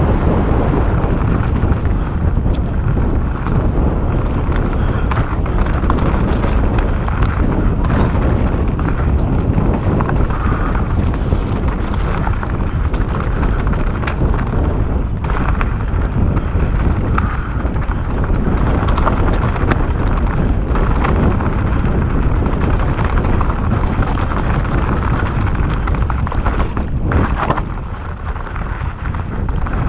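Mountain bike riding down a rocky, leaf-covered dirt trail: steady wind noise on the microphone, with scattered knocks and rattles as the bike runs over rocks and bumps.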